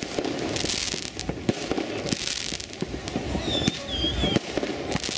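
Fireworks and firecrackers going off: scattered sharp bangs and cracks with hissing, crackling swells, and a few short wavering whistles about three and a half seconds in.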